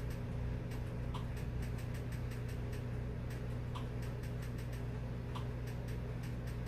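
Irregular light clicks, a few a second, as a password is keyed in letter by letter with a TV remote, over a steady low hum.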